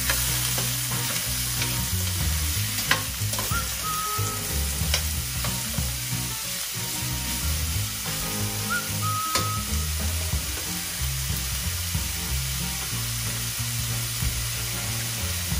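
Marinated pork belly frying in olive oil in a pan, a steady sizzle, with a few sharp clicks about three, five and nine seconds in.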